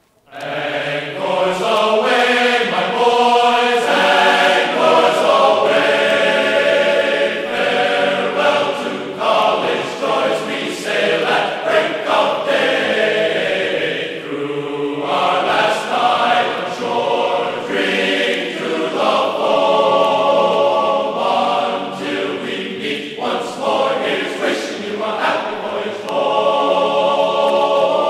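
Background music: a choir singing long, held chords.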